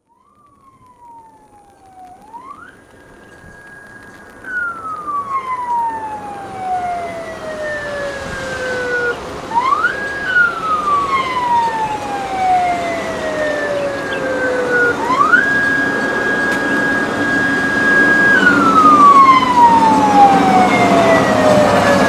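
Inspection draisine's siren wailing: it climbs quickly to a high note, holds it for a moment, then slides slowly down, three times over. The railcar's running noise grows louder as it approaches.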